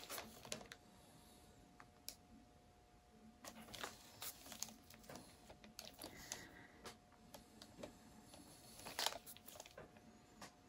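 Quiet handling noise of gloved hands at work: scattered soft clicks and crinkles, the loudest about nine seconds in, over a faint steady hum.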